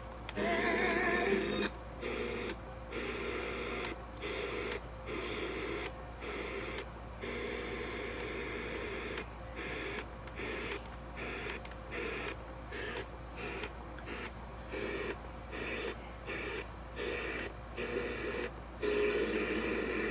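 Portable radio being tuned across the band: short bursts of static and garbled signal, each cut off by a brief mute, with a wavering whistle about a second in. The radio is not finding a clear station.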